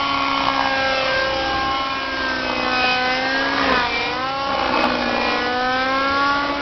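Thunder Tiger Raptor radio-controlled model helicopter flying aerobatics: a steady engine-and-rotor whine. Its pitch dips sharply about halfway through, then climbs back.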